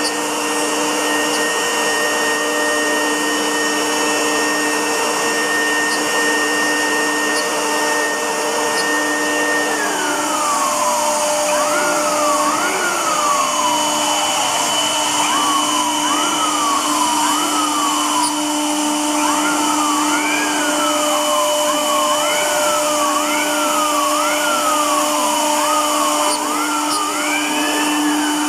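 CNC router cutting MDF: the spindle runs with a steady whine, and from about a third of the way in the axis drive motors whine in repeated rising and falling sweeps as the gantry speeds up and slows down along the toolpath.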